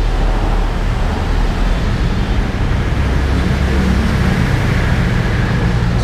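Steady low rumble of motor-vehicle engines and road traffic, with a constant low hum.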